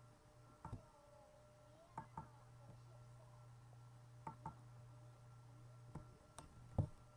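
Quiet room with a steady low hum and a few soft clicks and knocks, several in quick pairs, the loudest one shortly before the end.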